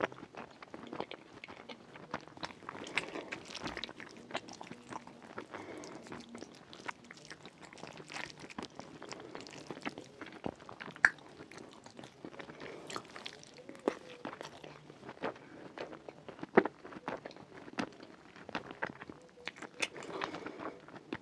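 Close-miked chewing of rfissa, soft saucy shredded flatbread with chicken and lentils, full of wet mouth clicks and smacks at an irregular pace, with a few sharper clicks now and then.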